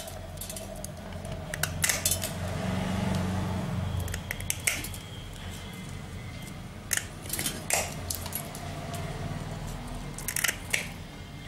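Pliers cracking and snapping small pieces off a porcelain terminal socket for an electric iron, trimming it down to size: scattered sharp clicks and cracks over a low steady hum.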